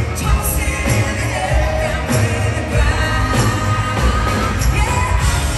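A live country-pop band plays on stage: a woman sings the lead into a handheld microphone over keyboard and a steady, heavy low beat. The sound is a loud arena mix heard from the crowd.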